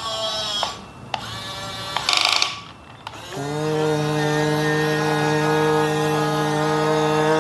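Electric motor and gearbox of a Huina remote-control excavator driving its arm: a short whir about two seconds in, then a steady, even-pitched motor whine that sets in about three seconds in and holds.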